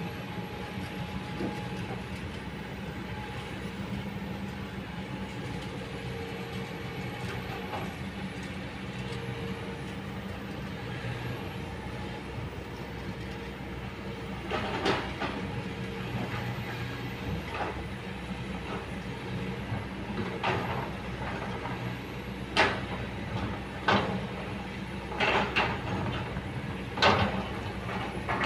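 Kobelco hydraulic excavator's diesel engine running steadily as it digs. From about halfway on, a string of sharp clanks and knocks, several seconds apart and closer together near the end, as the steel bucket works into stony soil.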